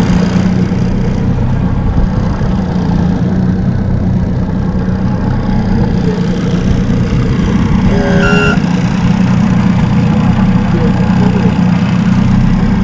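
Outboard motor running steadily as the boat moves, an even engine hum with wind and water noise over it.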